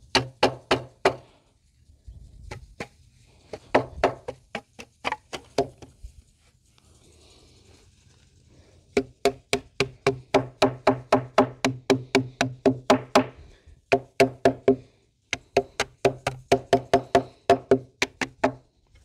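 A hammer tapping rapidly on a thin, malleable sheet-metal guard wrapped around the base of a wooden deck post, bending its corners flat against the post. The taps come in runs of several a second with short pauses between, each tap a sharp knock with a brief ring.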